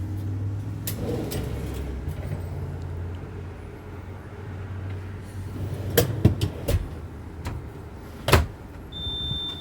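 Pull-out pantry cabinet being worked, with a few sharp clicks and rattles about six seconds in and a louder knock near the end as it shuts, over a low steady hum. A short high beep sounds just before the end.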